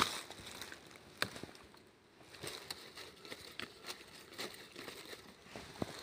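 Faint, scattered crackling and rustling of dry bamboo leaf litter being stepped on or disturbed, with a couple of sharper clicks, one about a second in and one near the end.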